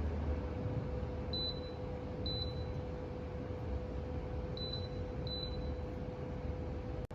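Electric space heater running with a steady fan noise and a faint hum, with four short high beeps from its control panel as buttons are pressed.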